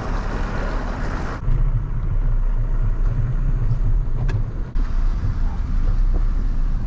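A steady rushing noise for about a second and a half, cut off suddenly, then a pickup truck's engine running with a low, steady rumble as it tows a bass boat on its trailer, heard from the boat.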